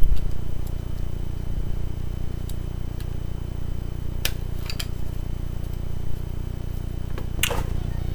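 Steady low hum, with two short clicks about halfway through and a louder click near the end.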